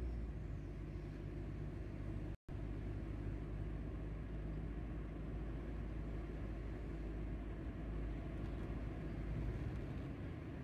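Steady low rumble of a car driving, engine and road noise heard from inside the cabin. The sound cuts out completely for an instant about two and a half seconds in.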